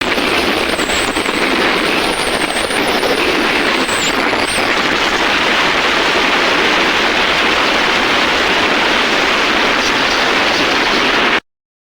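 Steady rush of wind and road noise from a motorcycle ridden at speed, with wind buffeting the phone's microphone; it cuts off abruptly near the end.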